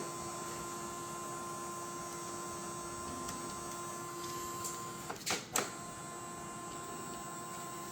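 Creality CFS filament unit's feed motor running with a steady whine as it tries to pull in filament that it is not grabbing, with two sharp clicks a little after five seconds in.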